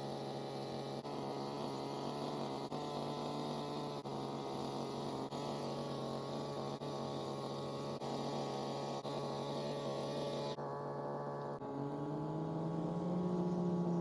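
Small petrol engine of a post-hole earth auger running with a steady hum. It rises in pitch a couple of seconds before the end.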